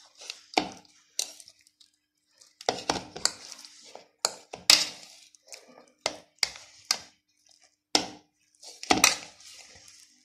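Metal fork clinking and scraping against a ceramic bowl while stirring cream cheese and chopped ham, with a dozen or so sharp, irregular taps.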